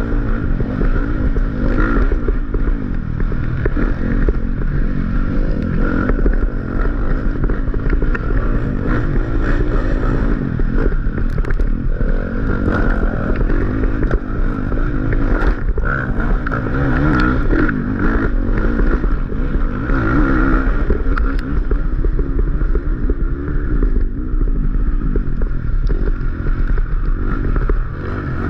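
Off-road dirt bike engine ridden hard on a rough trail, its revs rising and falling constantly as the throttle is worked, with a few sharp knocks from the bike over the ground.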